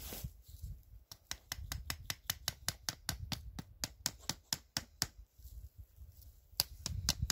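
Quick, even taps of a wooden club on a stake, driving down the edge of a poncho shelter: about five sharp knocks a second for some four seconds, then a few more near the end.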